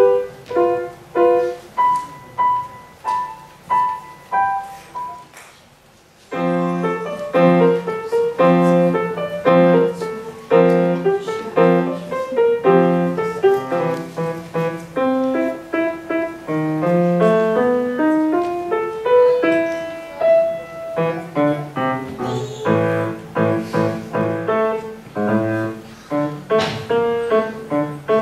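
Solo grand piano. First comes a slow passage of evenly paced notes with a high note repeated over and over, fading out about six seconds in. Then an abrupt cut into a busier passage, with running notes over a steady bass line.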